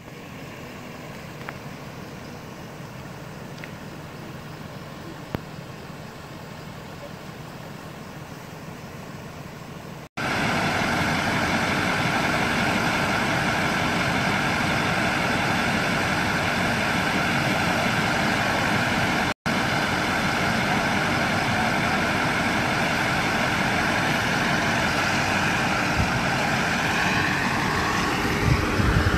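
Emergency vehicles idling, a steady engine hum that becomes much louder about ten seconds in. Near the end a tone rises in pitch.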